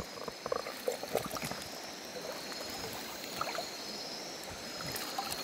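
River water washing and splashing around a camera held at the waterline, with a few small splashes and knocks in the first second, then a steady rush of water.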